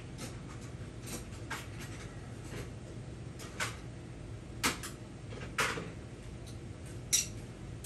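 Light metallic clicks and clinks of hand tools and small engine parts being handled, about eight separate taps spread out, over a low steady hum.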